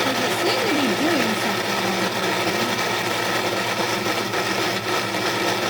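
Breville Bluicer blender motor running steadily on speed three, churning a thick tomato barbecue sauce that is too thick to blend freely and needs more liquid.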